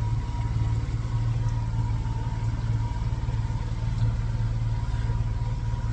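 Yamaha F30 three-cylinder four-stroke outboard ticking over steadily, a deep even hum with a faint steady whine above it, running smoothly on freshly changed spark plugs.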